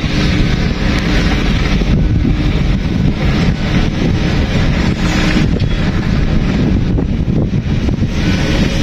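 Diesel engine of heavy earthmoving machinery running steadily, a loud low rumble with a rough hiss above it.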